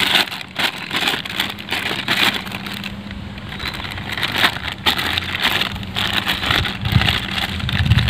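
Thin plastic bags crinkling and rustling in irregular crackly bursts as they are wrapped around a smartphone by hand. A steady low hum runs underneath, and there are a few dull handling thumps near the end.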